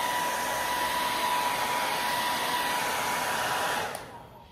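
1875-watt handheld hair dryer blowing on high: a steady rush of air with a thin steady whine. Near the end it stops and the sound fades away over about half a second.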